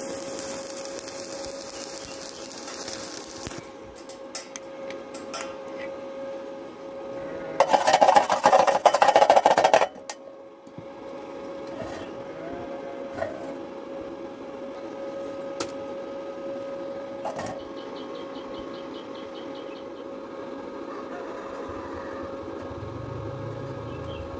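Stick welding arc at about 30 A with a thin 2.0 mm rod on thin galvanized steel tube, crackling and hissing as the arc is struck, with a louder, harsher burst of crackling from about seven to ten seconds in. A steady hum runs underneath, with a few scattered ticks.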